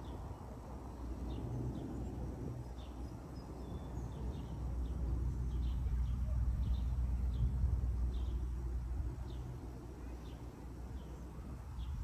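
Outdoor ambience by a pond: a steady low rumble that swells in the middle, with a small bird chirping repeatedly, about once a second.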